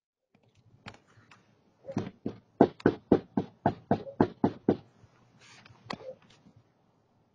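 A rapid run of about ten sharp knocks, roughly four a second, after a few scattered clicks, with one more knock a second later, picked up by a Nest security camera's microphone.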